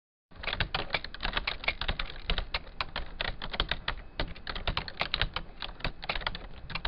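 Fast typing on a keyboard: a dense, uneven run of sharp key clicks that starts abruptly out of silence.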